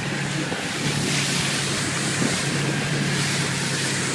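A boat's motor running with a steady low hum, under a continuous rush of wind and water.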